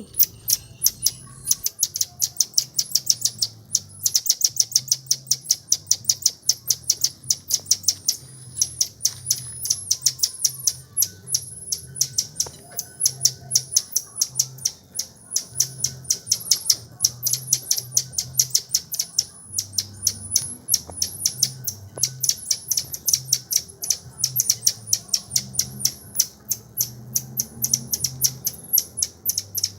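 A small animal's high-pitched chirping calls, several a second and running on without a break, with thin whistles above them; the owner takes them for the young animal calling its mother.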